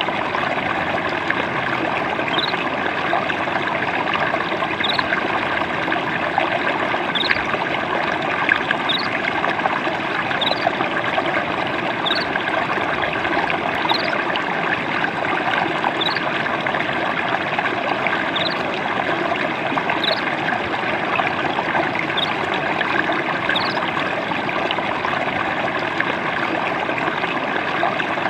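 Water trickling and babbling steadily. A short, high, rising chirp recurs about every two seconds on top of it.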